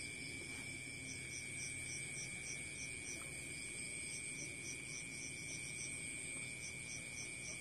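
Crickets chirping: a steady high trill with a pulsing chirp about four times a second, faint and even throughout.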